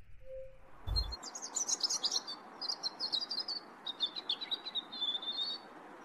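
European robin singing: rapid, high warbling and twittering phrases that start about a second in and stop shortly before the end, over a steady background hiss. A brief low thump comes just as the song starts.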